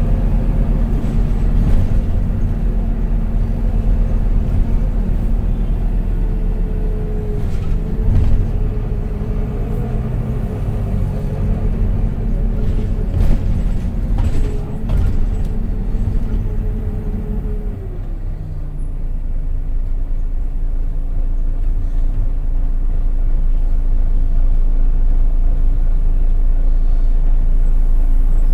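Volvo B9TL bus heard from inside while under way: its six-cylinder diesel runs with a steady whine that drops in pitch at a gear change about two-thirds of the way through. After that the engine noise builds gradually, and a few short rattles come through the middle.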